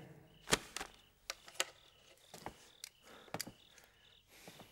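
Crickets chirping faintly in the background, with a scattering of short soft clicks and taps, about eight in a few seconds.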